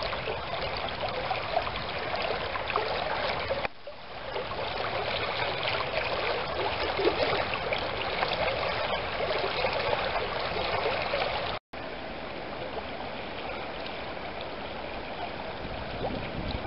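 Shallow stream running and rippling over a riffle, a steady rush of water. The sound dips briefly about four seconds in and cuts out for an instant about two-thirds of the way through.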